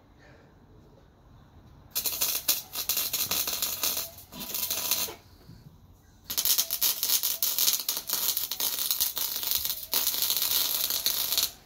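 MIG welder arc crackling in four bursts of one to a few seconds each, with short pauses between, as weld beads are laid.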